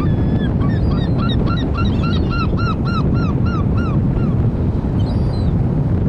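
A gull calling a rapid run of about fifteen repeated notes, each rising then falling in pitch, over loud steady wind and surf noise. A higher, shorter call comes about five seconds in.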